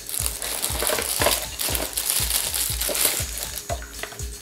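Plastic wrapping crinkling and rustling as a power charger is handled and lifted out of its packing, with many short crackles.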